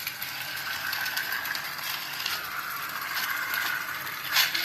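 Battery-powered toy train running on plastic track: its small motor and gearbox whir steadily, with light clicking from the wheels and track and a sharper click near the end.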